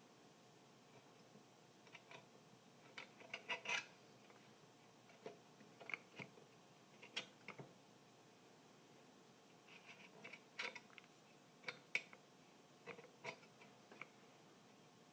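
Irregular light taps, clicks and scratches of hands and small tools working on an old home theater speaker during a foam surround repair, coming singly and in short quick clusters.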